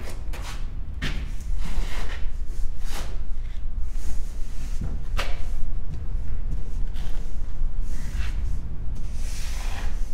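Hands banging and shoving against a metal door, with irregular thuds about every second or two, each ringing briefly, over a steady low rumble.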